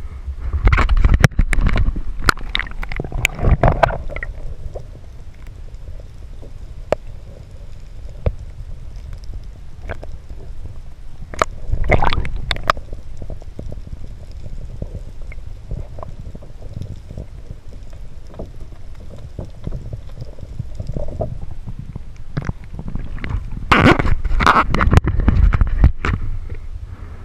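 Seawater splashing and gurgling around a GoPro action camera as it goes under the surface and comes back out, with a muffled low rumble while it is underwater. There are three loud spells of splashing: just after the start, about halfway through and near the end.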